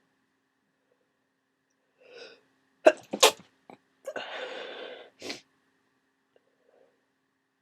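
A person with a cold sneezing: a short intake of breath, then a sharp double burst of sneeze, followed by about a second of breathy noise and one more short burst.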